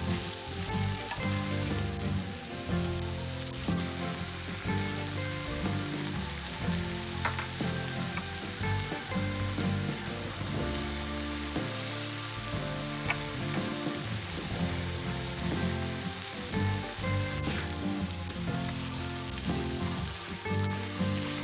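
Champignon and oyster mushrooms with onion frying in a pan, giving a steady sizzle, under background music of held notes.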